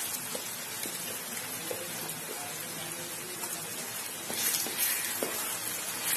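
Ground mustard paste sizzling and bubbling in hot oil in a pan, stirred with a wooden spatula, as the water it was ground with fries off. The sizzle gets louder about four seconds in.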